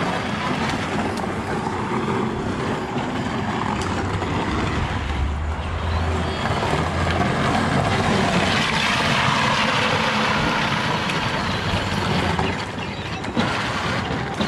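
12-volt Power Wheels ride-on quad driving on asphalt: a steady noisy rumble from its hard plastic wheels on the pavement and its electric drive.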